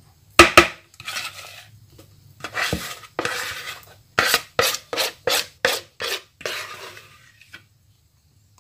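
Spatula scraping around an aluminium tube cake pan to spread and level thick cake batter. There are two sharp knocks about half a second in, rasping scrapes, then a run of quick strokes about three a second, and a last scrape near the end.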